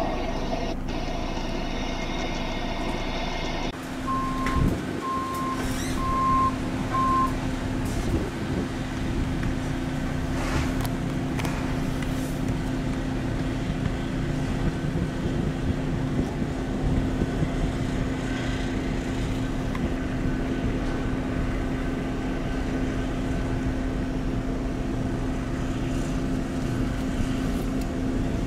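A vehicle's engine running steadily with a constant low hum. A few seconds in there are four short, evenly spaced electronic beeps.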